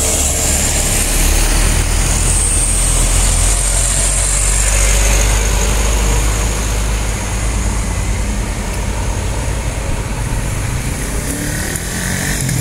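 Diesel engines of loaded medium cargo trucks driving past on a winding hill road, a loud, steady low rumble that eases off after about seven seconds as the trucks move away.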